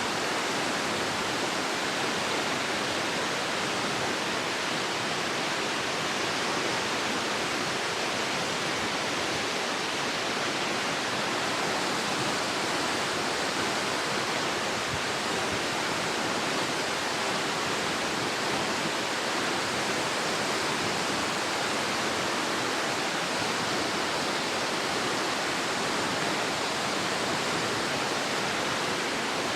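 Waterfall: water pouring and splashing steadily, a dense, even rush with no letup.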